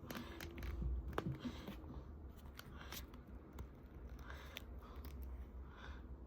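Cardboard packaging being handled: faint scraping and rustling with scattered small clicks and low bumps.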